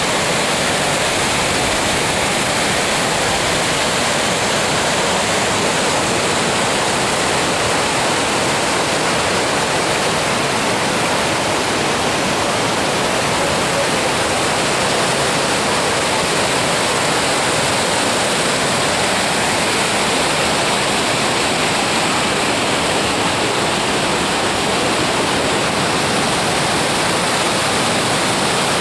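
Steep creek cascading as white water over rocks: a loud, steady rush of falling water.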